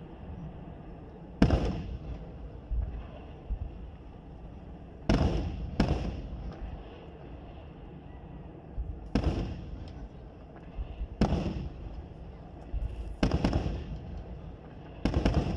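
Aerial firework shells bursting: about eight sharp bangs at uneven intervals, each trailing off in a short echo.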